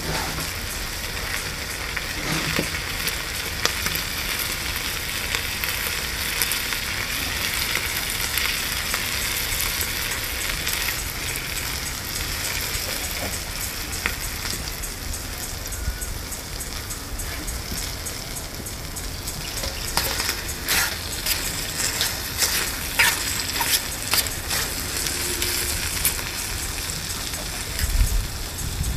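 Bacon frying in a small pan over a brass alcohol burner: a steady sizzle with scattered pops and crackles that grow busier about two-thirds of the way through. Near the end a low knock as the pan is handled with a fork.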